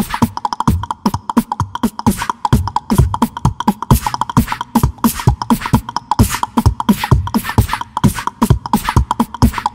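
Background music with a fast percussive beat of deep, falling thuds and sharp clicks, several hits a second, over a steady high tone.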